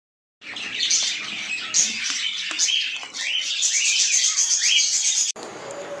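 Many small birds chirping and chattering at once, a dense flock chorus of short high rising and falling calls. It starts about half a second in and cuts off abruptly near the end.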